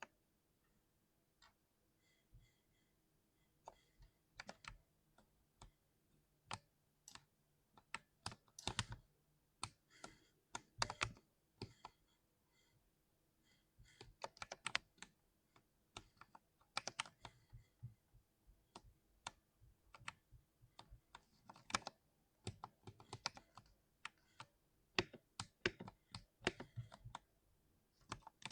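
Typing on a compact 60% keyboard: keystrokes clicking in irregular bursts with short pauses, sparse at first and busier from about a third of the way in.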